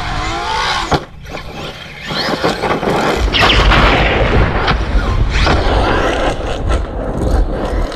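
Traxxas Maxx V2 RC truck's electric motor whining up and down in pitch as the throttle is blipped during a jump, with a knock about a second in. The truck then drives hard over a gravel road, its motor whine rising over tyre noise and a heavy low rumble of wind on the microphone.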